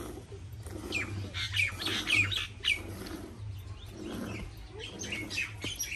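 Hand-milking a cow: milk streams squirting into a steel pail of frothy milk in a steady stroke-by-stroke rhythm, with birds chirping loudly over it in two bursts.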